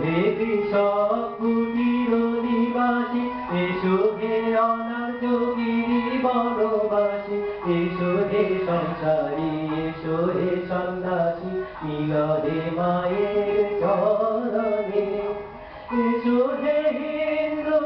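A man singing a slow melody into a microphone, holding long notes that step between pitches, with a brief pause for breath near the end.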